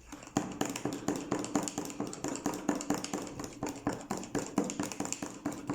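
A spoon stirring brown sauce mix into a cup of water, tapping rapidly against the cup at about six taps a second.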